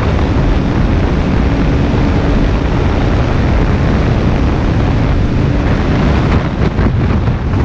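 Heavy wind noise buffeting the microphone of a camera mounted on a moving motorcycle, with the motorcycle running underneath it.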